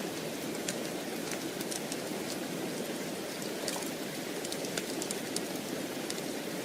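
Steady rain, with many small sharp crackles scattered through it.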